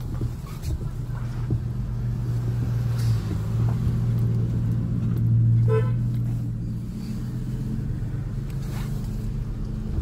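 Car engine idling, heard from inside the cabin as a steady low hum that swells louder around the middle and then eases back. A brief higher tone sounds once near the middle.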